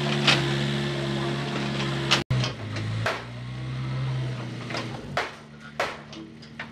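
Volvo EW55B wheeled excavator's diesel engine running steadily. About two seconds in the sound breaks off for an instant, then the engine carries on more quietly with a few sharp knocks.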